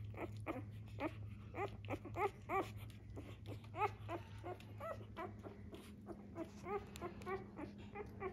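Newborn Labrador Retriever puppies squeaking and whimpering: a string of short, high, arching cries, about two or three a second.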